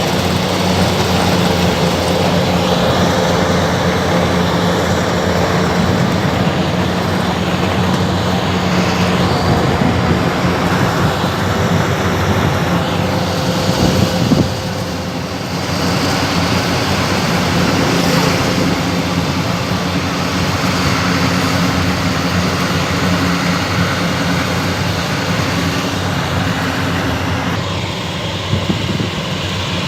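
Rice combine harvester running steadily while harvesting, a constant engine drone over the rush of its cutting and threshing machinery. A short knock comes about fourteen seconds in, after which it runs a little quieter.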